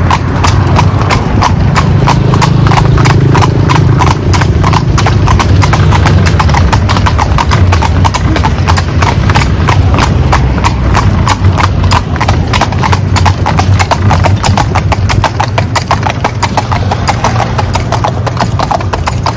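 Hooves of a pair of carriage horses clip-clopping on a paved road, a quick, steady run of strikes, over a steady low rumble.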